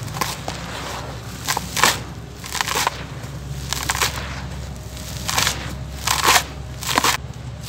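Dry, gritty dirt crumbled and poured by hand in a tub: a run of short, crunchy, crackling rushes of falling grit, about one a second.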